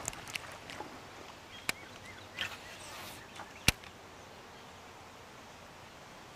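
A few scattered sharp clicks and ticks from a fishing rod and reel being handled over quiet open-water ambience. One louder, sharp click comes a little past halfway through.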